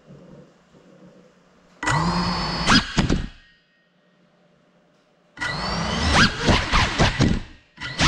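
Brushless motors and propellers of a small FPV quadcopter, heard from the camera mounted on it. A faint hum at first, then a loud whine about two seconds in that rises and bends in pitch for about a second and a half, a short near-silent drop, and another loud whine of changing pitch from about five and a half seconds in.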